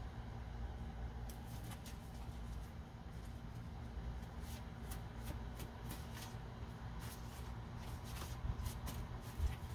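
Tarot deck shuffled by hand: quick, irregular card flicks and snaps starting about a second in, over a steady low hum.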